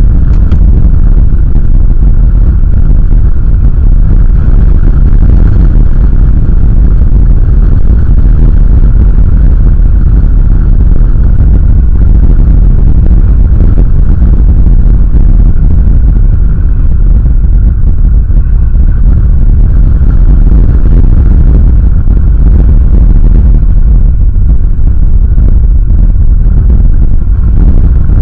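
Strong wind buffeting the eagle nest camera's microphone: a loud, steady low rumble.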